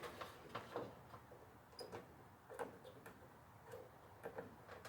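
Faint, irregular light clicks and taps from a dryer timer being handled during continuity testing.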